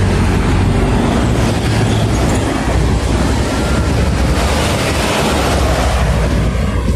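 Heavy highway traffic: trucks and cars passing in a loud, steady rumble of engines and tyres, with a truck going by close alongside near the end.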